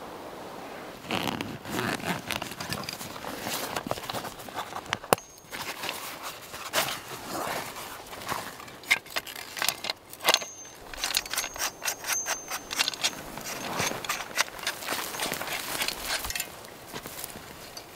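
Close-up rustling of a backpack and fabric pouch, with sharp clicks and light metal clinks as a folding metal tool is taken out and handled. Footsteps through forest undergrowth follow near the end.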